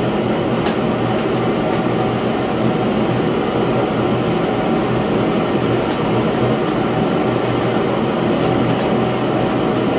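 Propane garage heater running with a steady, loud rushing noise and a low hum.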